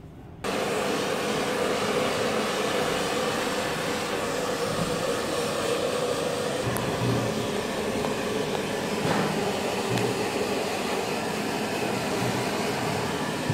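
Hair dryer switched on about half a second in, running steadily on a wet kitten, with a steady hum over the rush of air.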